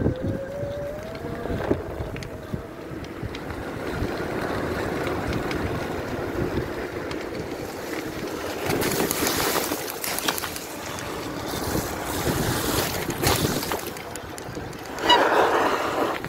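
Electric mountain bike riding over a wet, rough lane: tyre and frame rattle with wind buffeting the microphone, and a thin rising whine from the conversion-kit motor as it speeds up near the start. Several louder rushes of wind and tyre noise come later on.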